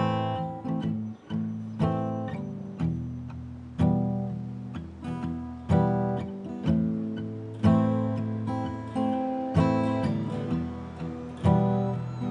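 Acoustic guitar strummed in a steady rhythm, a heavy strum about every two seconds with a lighter one between.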